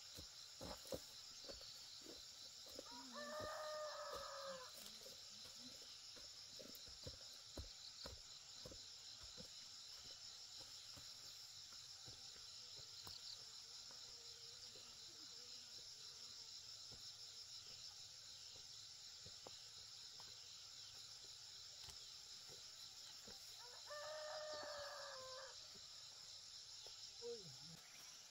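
A rooster crowing twice, about twenty seconds apart, each crow lasting a second or two.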